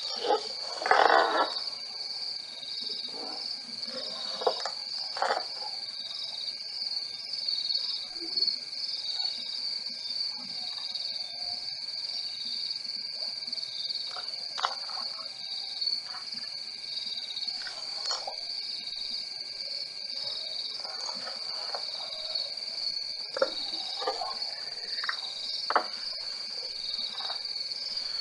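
Night insect chorus of crickets, a steady high pulsing chirr, with scattered knocks and scuffs from two elephants sparring head to head. The loudest knock and scuff comes about a second in.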